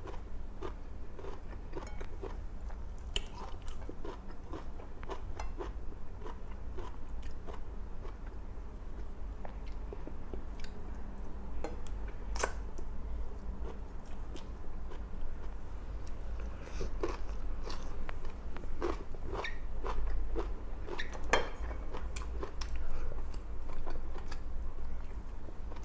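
Close-miked eating: a person chewing and biting food, with many small crunches and wet mouth clicks, over a steady low hum.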